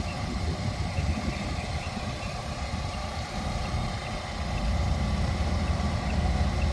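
Excavator's diesel engine running steadily as it lifts a pipe, its low rumble growing louder about two-thirds of the way through.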